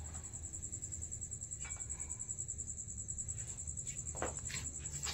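Crickets chirping in a steady, high-pitched, fast pulsing trill, with a few faint knocks.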